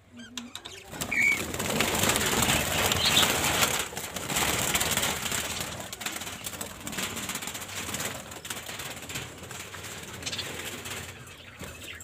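Budgerigars in a colony cage flapping their wings in a flurry, stirred up by chicks being caught by hand, with a short chirp about a second in. The flutter is loudest over the first few seconds and then slowly dies down.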